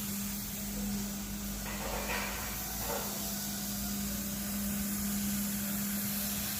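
Viper AS530R ride-on floor scrubber running: a steady hum over a constant hiss, with faint brief scrubbing rustles about two and three seconds in.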